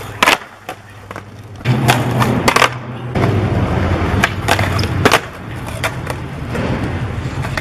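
Skateboard popped onto a marble ledge for a frontside 5-0 grind attempt: a sharp pop of the tail, the metal truck scraping on the marble, then the wheels rolling on pavement with several sharp clacks of the board landing and slapping down.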